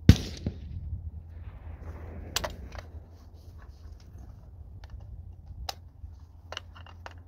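A single rifle shot at the very start, by far the loudest sound, with a short echo after it. Scattered light clicks and taps of gear being handled follow.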